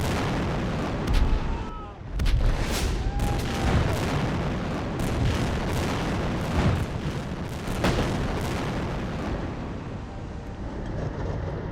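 Heavy gunfire and explosions: many sharp cracks and blasts over a continuous low rumble, thinning out near the end.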